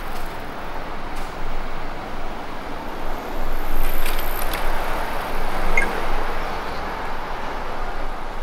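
Road traffic: a steady hum of passing cars, loudest as a vehicle goes by about four seconds in.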